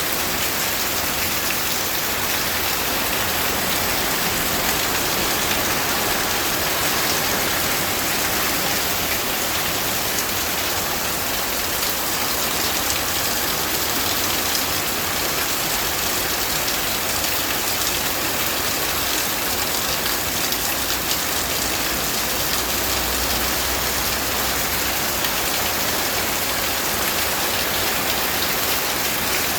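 Steady rain falling, a dense, even hiss that holds at one level throughout.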